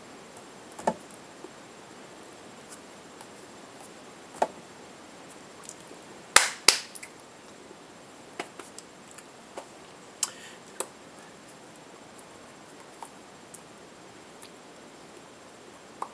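Scattered sharp taps and claps of hands meeting while signing ASL, about a dozen in all, the loudest a close pair about six and a half seconds in, over a steady faint hiss.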